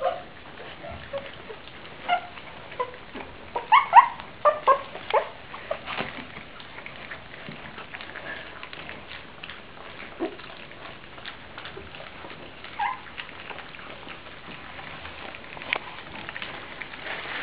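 English Cocker Spaniel puppies squeaking and whimpering, with a cluster of short high squeaks about four seconds in and a few single ones later. Light clicking and pattering run underneath.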